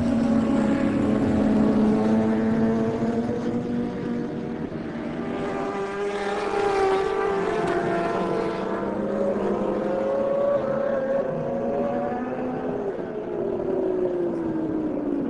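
Several racing superbikes at high revs, their engine notes rising and falling with throttle and gear changes as the pack passes, loudest about halfway through. Near the end one engine's pitch falls steadily as a bike goes by.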